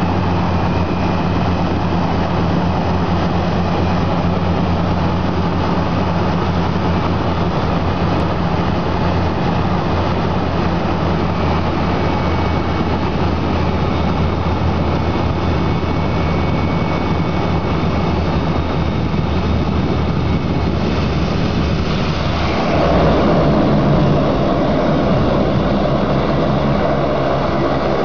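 Seaplane propeller engines droning steadily with a low, even hum. About 22 seconds in the sound gets louder, a rushing noise joins it and the engine note shifts lower.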